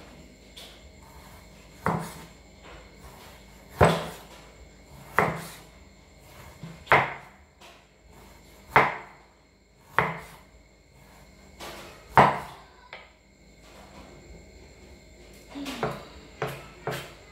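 Cleaver knocking on a round wooden chopping block as raw beef is sliced thin, one sharp knock every second and a half to two seconds, then quicker, lighter knocks near the end.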